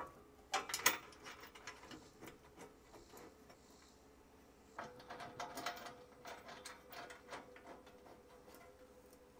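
Light metal clicks and taps of a steel back plate being fitted against Unistrut channel and bolted on. A few sharp clicks come about a second in, then a run of quick ticks from about five to seven and a half seconds.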